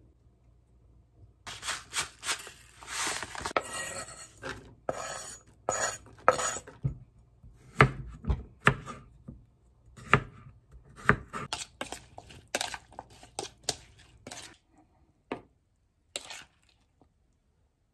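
Kitchen knife cutting a cucumber into irregular chunks on a wooden cutting board, with clinks of a spoon and bowl: a run of irregular knocks and short scrapes.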